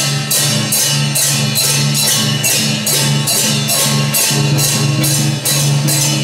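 Music with a fast, steady beat of bright percussion strikes, about three a second, over a held low tone.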